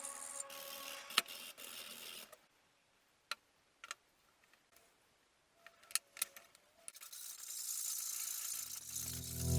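A few sharp metallic clicks and light rattles, like small rifle parts being handled, spaced out over several seconds. A hiss fades out after about two seconds and rises again near the end.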